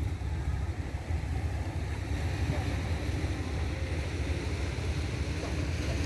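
Wind buffeting the microphone in a steady low rumble, over surf washing against the rocky shore.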